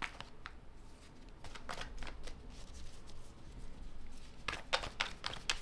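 A tarot deck being shuffled overhand by hand: quick runs of soft card clicks and slaps, with a quieter spell in the middle and a denser run near the end.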